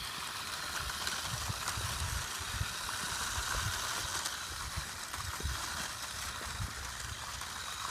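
Remote-control toy car driving on the road, a steady whir from its small electric motor, with irregular low thumps.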